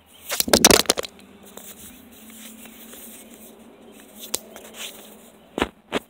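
A phone dropped while recording: a quick run of loud knocks and clatter about half a second in as it hits something and bounces aside. Later come handling and scraping noises with a couple of single sharp knocks as it is picked back up.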